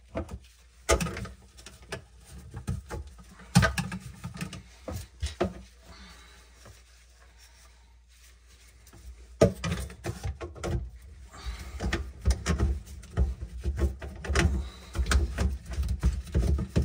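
Plastic drain parts knocking and clicking as white tailpiece sections and slip nuts are handled and fitted onto a sink's pop-up drain body. The sound pauses about halfway through, then the handling resumes and gets busier.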